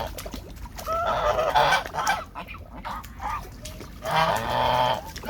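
Geese honking in bursts of harsh calls, with one bout about a second in and another about four seconds in.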